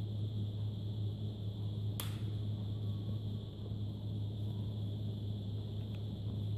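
A steady low hum, with one sharp plastic click about two seconds in as a clip of the Nokia Lumia 625's plastic back frame snaps free while it is pried open by hand.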